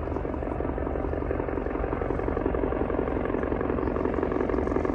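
Helijet helicopter approaching to land: a rapid, steady rotor beat that slowly grows louder.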